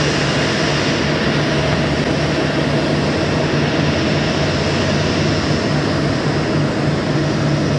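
Jet engines of a Boeing 787-10 running at taxi power: a steady, even noise with a constant low hum, not rising or falling.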